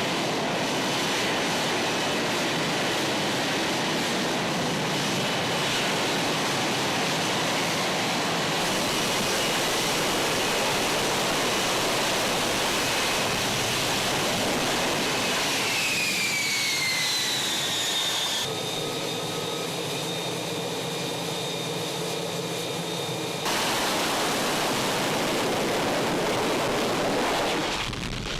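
F-35 Lightning II jet engine running loud and steady, with a high whine that falls in pitch about halfway through. The sound changes abruptly twice in the second half, as if cut between clips.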